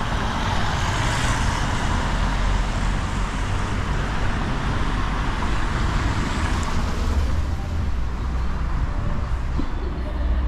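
Street traffic: car, truck and bus engines running and tyres rolling past in a steady rumble.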